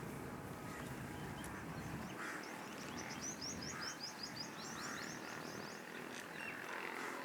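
Birds calling outdoors: a quick run of short, high chirps repeated several times a second in the middle, with scattered lower calls over a steady background hiss.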